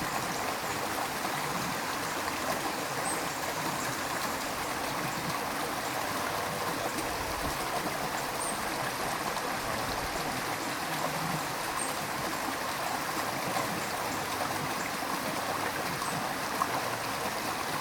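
River stream water running steadily, an even, unbroken rush of flowing water.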